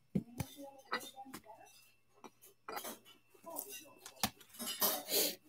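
Clear rigid plastic card holders and trading cards being handled: several sharp clicks and taps of hard plastic, the loudest about four seconds in, with short scraping slides of cards against plastic near the end.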